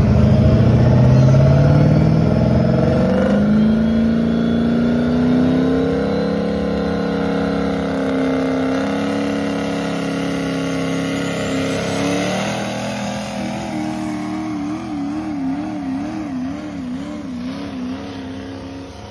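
Diesel pickup truck engine at full throttle, pulling a weight-transfer sled. It revs up over the first few seconds and then holds high revs under heavy load. Later the pitch wavers up and down, and the engine grows fainter as the truck moves off down the track.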